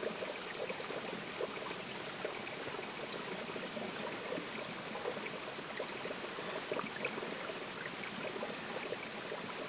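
Filtered water trickling steadily into a plastic water bottle from a squeezed Hydrapak bladder through a Katadyn filter.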